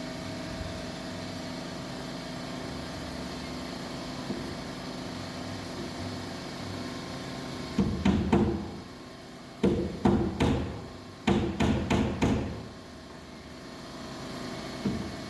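Hammering on porch framing: three quick runs of sharp strikes, about three, four and five blows each, starting about eight seconds in, over a steady background hum.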